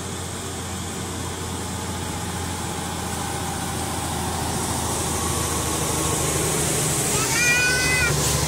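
A truck's engine running and growing louder as it approaches along the road, with a short high-pitched tone about a second long near the end.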